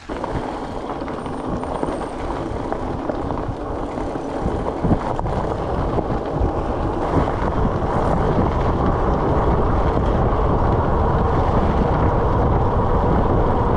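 Wind rushing over the microphone and tyres rolling on a gravel trail as an e-bike runs downhill at speed. It grows louder over the first several seconds, then holds steady.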